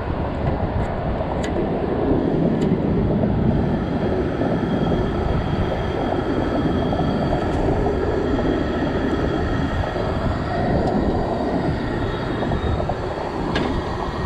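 Steady rumbling roar of wind and traffic, with a few sharp clicks in the first few seconds as a lighter is struck at a propane camp-stove burner. Near the end comes one more click as a metal pot is set on the stove grate.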